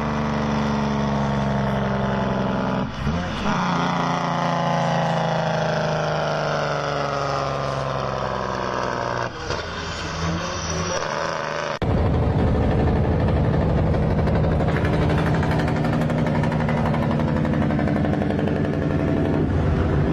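Diesel engine brake working on a vehicle. The engine's pitch falls steadily as it slows, and about twelve seconds in the sound switches abruptly to a louder, denser low rumble.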